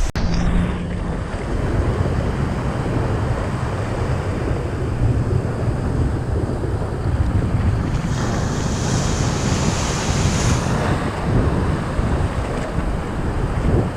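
Wind buffeting the microphone over the rush of water and waves around a small fibreglass fishing boat, a steady loud noise with a heavy low rumble. A brighter hiss swells for a couple of seconds past the middle.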